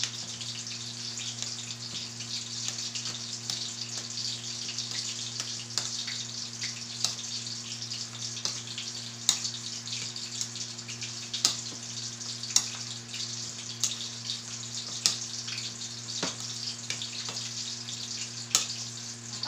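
Metal spoon clicking against a bowl every second or two while mashing potatoes, over a steady hiss of chicken fillets frying in oil and a low steady hum.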